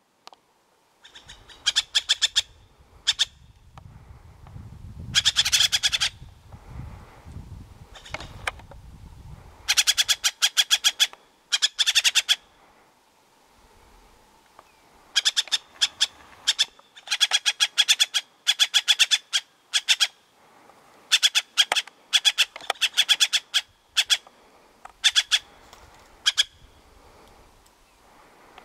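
Jay (urraca) calling in harsh, rapid rattling bursts, each half a second to a second long, repeated about a dozen times with short pauses between.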